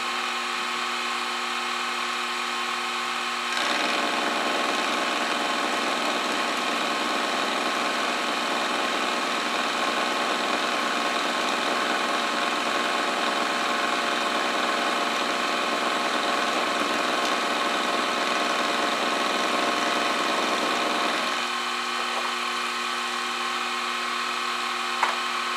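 Milling machine spindle running with a steady motor whine, its end mill taking a very light half-thou finishing pass along a slot in a small metal part. The cut adds a fuller, rougher sound from about 3.5 s in until about 21 s in, then only the spindle runs on.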